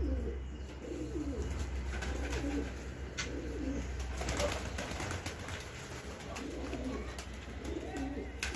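Domestic pigeons cooing, low warbling coos repeating one after another, with a few short sharp clicks among them.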